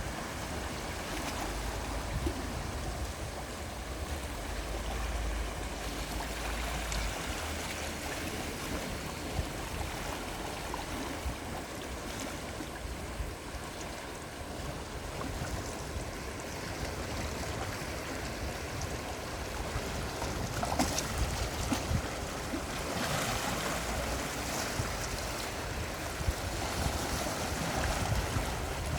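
Gentle sea waves washing in, a steady rushing with low wind rumble on the microphone; the wash swells louder about two-thirds of the way through.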